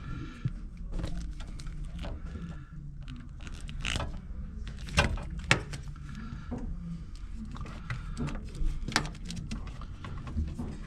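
Irregular clicks and knocks of hand work on a vending machine's metal parts over a steady low hum, with a few sharper knocks about four, five and nine seconds in.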